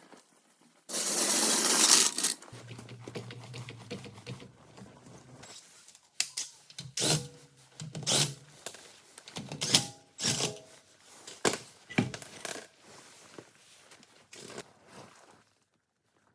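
Hand work on a car's brakes: a loud hiss for about a second and a half near the start, a short low hum, then a run of sharp metallic clicks and knocks from tools and parts.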